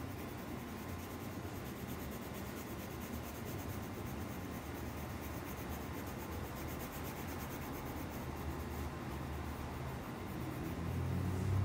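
Colored pencil shading on paper: the pencil lead rubbing steadily across the sheet as an area is filled in with colour.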